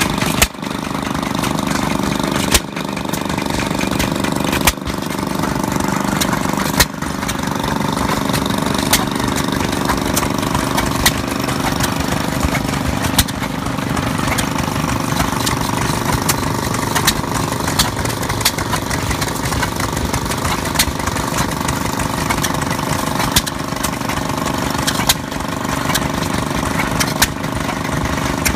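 Antique stationary gasoline engines running: a steady engine chug under a sharp pop that repeats evenly about every two seconds, like the firing stroke of a hit-and-miss engine.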